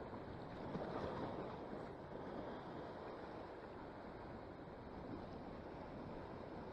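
Ocean surf washing over nearshore rocks, with wind buffeting the microphone: a steady, even wash with no distinct events.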